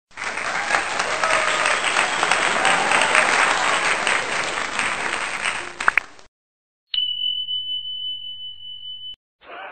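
Intro sound effects: a loud, dense crackling noise like applause for about six seconds that cuts off suddenly, then after a short gap a steady high-pitched beep held for about two seconds.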